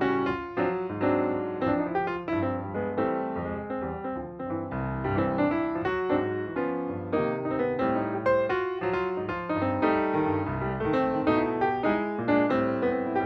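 Background piano music: a flowing keyboard melody with quick, evenly struck notes over a bass line.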